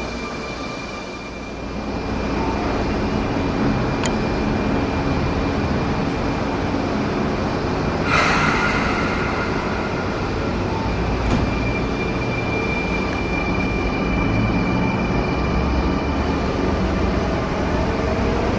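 Sotetsu 9000-series electric train pulling out of a station platform, its motors and wheels running in a steady rumble with a thin high steady tone. A short burst of hiss comes about eight seconds in.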